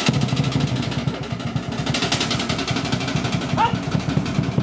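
Rapid, steady drumming that accompanies a fire-knife dance, with a short shout about three and a half seconds in.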